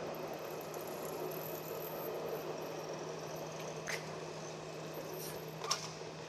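A tram running away along the street, its noise slowly fading into a steady city street hum. Two short sharp knocks about two seconds apart in the second half.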